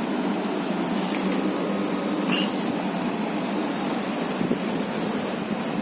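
Blue Star portable air conditioner (model BPCPAC12DA) running, a steady blowing noise from its fan and compressor.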